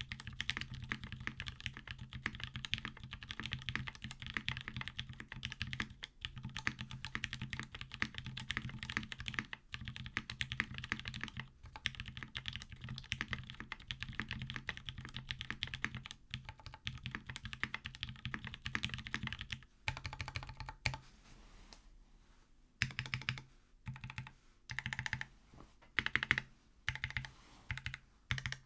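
Fast continuous typing on a custom mechanical keyboard with Krytox-lubed Gateron Black Ink linear switches, a carbon fibre plate and GMK keycaps. After about twenty seconds the typing stops briefly, then goes on as separate key presses about two a second.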